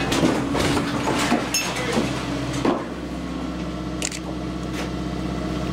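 A heavy machine's engine running steadily while wooden timbers crack, creak and knock for the first few seconds, and the engine note continues alone afterwards.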